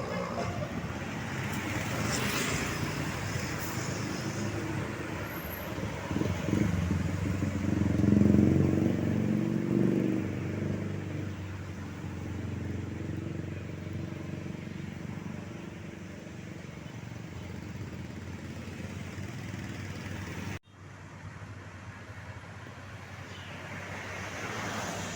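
Road traffic going by, with a heavy vehicle's engine passing close and loudest about eight seconds in. The sound drops out abruptly for an instant about twenty seconds in.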